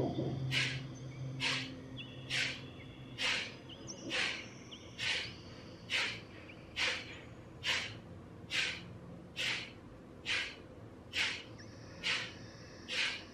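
Kapalbhati breathing: short, forceful exhalations through the nose, one about every second at a steady, even pace.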